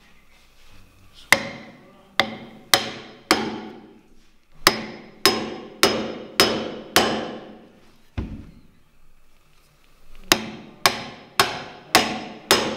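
Hammer blows on a long steel chisel chopping a mortise into a softwood timber beam: about fourteen sharp strikes in three runs of four to six, roughly two a second, each with a brief metallic ring. One duller, lower blow comes about eight seconds in.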